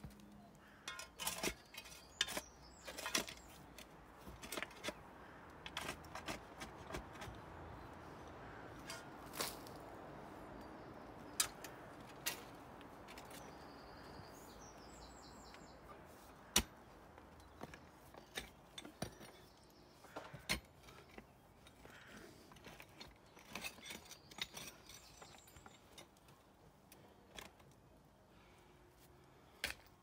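Spade digging into soil and stones: irregular scrapes, knocks and clinks of the metal blade, a few of them sharp and loud.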